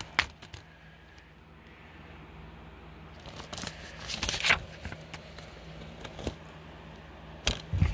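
Plastic Blu-ray case being handled and opened: a cluster of clicks and rustling about three to four and a half seconds in, then a few single clicks.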